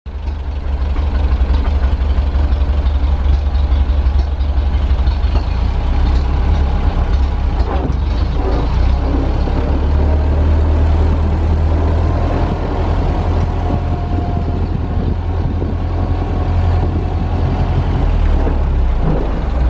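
1930 Ford Model AA truck's four-cylinder flathead engine running as the truck is driven slowly, a steady low rumble.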